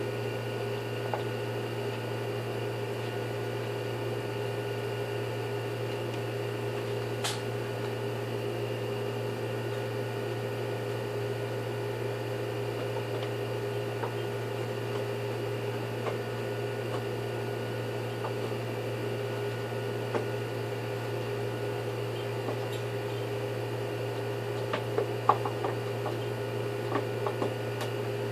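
Steady machine hum of several fixed tones, with a few light clicks and knocks near the end.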